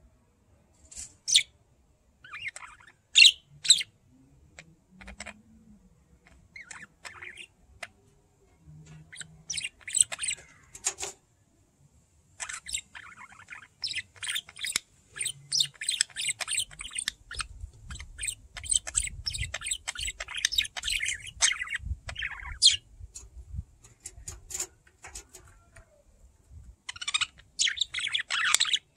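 Two budgerigars chirping and chattering. At first there are scattered sharp chirps, then about halfway through a long stretch of busy, continuous warbling chatter, which pauses briefly and picks up again near the end.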